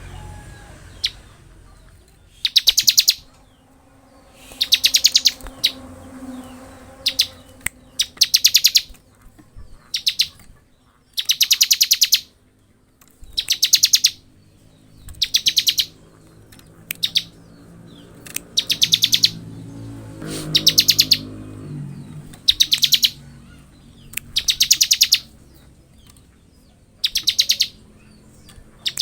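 Bar-winged prinia (ciblek) singing in 'ngebren' style. Fast, high, buzzing trills, each under a second long, repeat about every two seconds, with short sharp chirps between them.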